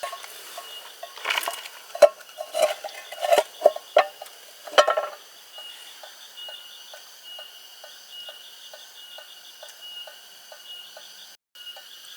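A steady insect chorus trilling, with a quick run of sharp knocks and clinks, like gear or wood being handled, in the first five seconds. After that comes a soft regular ticking, about three times a second.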